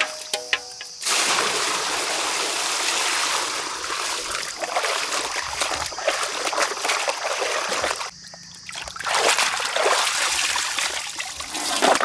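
Water being poured and splashing over raw whole chickens as they are washed by hand. It starts about a second in, stops briefly around eight seconds in, then resumes.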